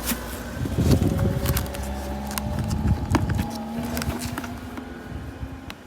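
A 1980s Chinese-made electronic keyboard being tried out, sounding a few held notes in a strange tone, with clicks and low handling thumps that fade after the first few seconds.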